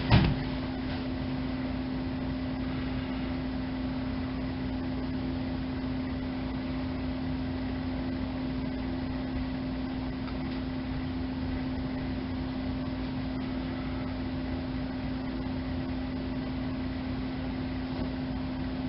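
Steady electrical hum with one constant low tone over a faint hiss, from the base of a 1980s colour-changing fiber optic lamp, where a small motor turns the colour wheel. A couple of handling knocks come right at the start.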